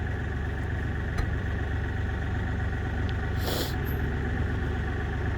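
Tractor engine idling steadily, with a brief hiss about three and a half seconds in.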